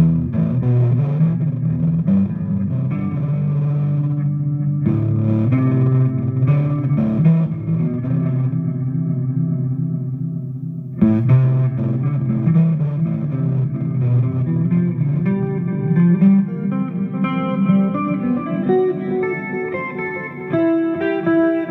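Electric guitar (a Vintage V100 Les Paul copy) played through a DigiTech GNX3 multi-effects pedal on its 'NiceReverb' patch and a Hughes & Kettner Attax amp. Sustained chords and notes ring out, with a sharp new attack about halfway through and higher notes layered in near the end.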